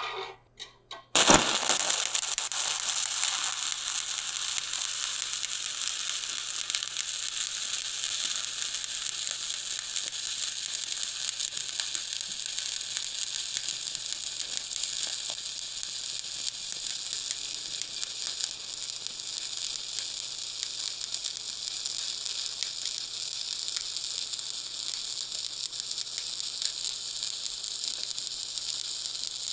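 Stick (SMAW) welding with a 1/8-inch E7018 electrode at about 115 amps. The arc strikes about a second in with a sharp crack, then settles into a steady sizzling crackle as the rod is dragged along a steel lap joint.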